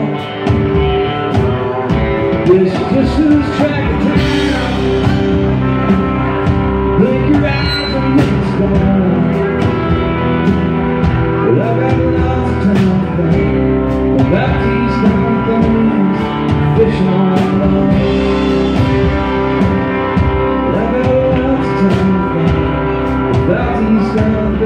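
A man singing a song live into a microphone while strumming an acoustic guitar.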